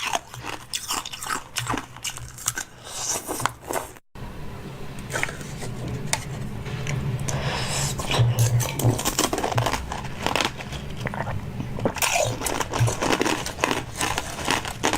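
Close-up crunching and chewing of food, bite after bite. After a cut about four seconds in, a low steady hum runs under the crunching.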